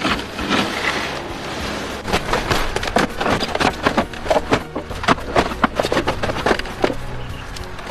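Irregular clattering knocks of wooden boards and debris being handled and set down, with a faint steady low hum underneath.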